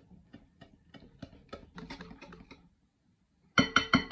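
Wire whisk stirring melted chocolate in a bowl: soft taps and clicks, about four a second. About three and a half seconds in comes a quick run of much louder ringing clinks as the whisk strikes the side of the bowl.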